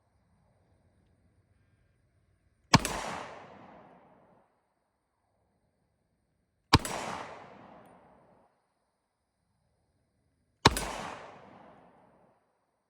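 Three single shots from a Mauser C96 broomhandle pistol, about four seconds apart, each a sharp crack followed by a reverberating tail lasting about a second and a half.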